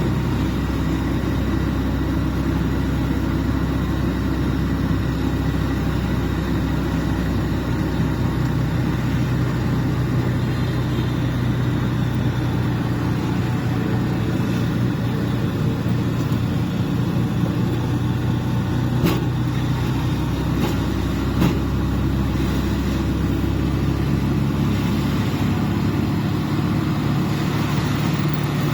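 Machine motor running steadily, its low hum shifting in pitch a few times, with a couple of faint clicks past the middle.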